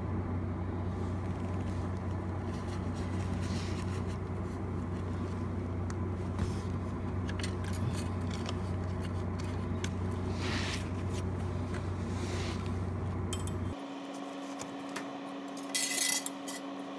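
TIG welding arc running steadily: an even electrical hum with hiss from the welder. It cuts off abruptly about fourteen seconds in as the arc is broken, leaving a fainter steady hum and a short click.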